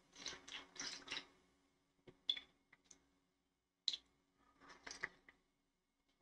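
A person sipping coffee from a small cup: a few soft slurps and mouth noises, with a couple of brief sharp clicks in between.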